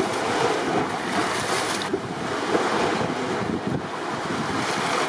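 Sea water rushing and splashing past a sailboat's hull under way, with steady wind noise on the microphone.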